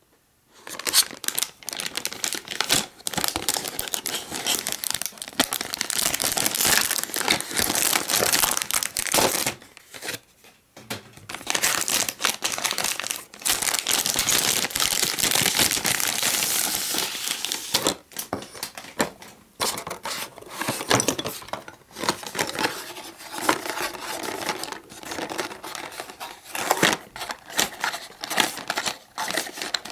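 Clear plastic packaging bag crinkling as it is handled and opened and the toy set's card is pulled out. The sound is dense and continuous at first, then more stop-start in the second half, with small clicks as the card and wire twist ties are handled.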